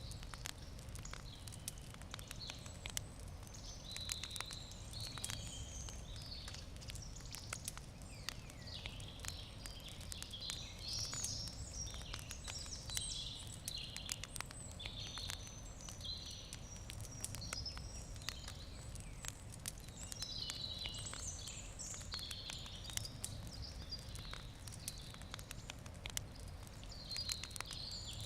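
Wood campfire crackling with frequent small sharp pops, over birds singing in the background and a low steady rumble.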